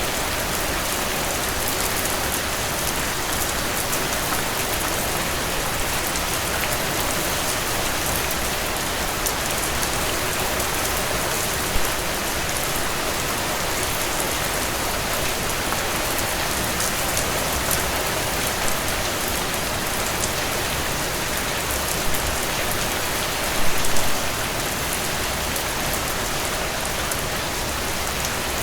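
Steady rain falling, a dense even patter of drops, briefly louder about 12 seconds in and again near 24 seconds.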